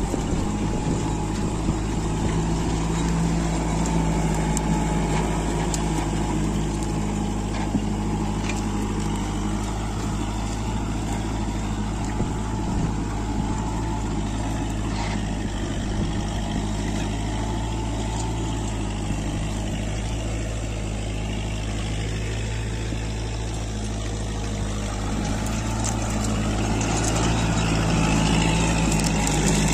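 Kubota tractor's diesel engine running steadily under load while pulling a three-bottom reversible mouldboard plough through dry soil. The engine grows a little louder near the end.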